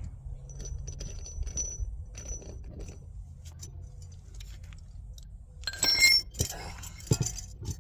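Metal clinking and clanking as an old bottle jack is handled and repositioned, with a loud ringing metal clank about six seconds in and two sharper knocks just after it.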